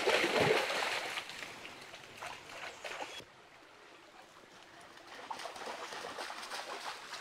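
A dog splashing about in a shallow, muddy creek for the first three seconds or so, then breaking off suddenly; after that only the faint trickle of the stream.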